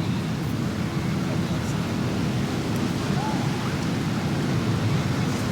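Beach ambience: a steady wash of surf with faint, indistinct voices of people mixed in.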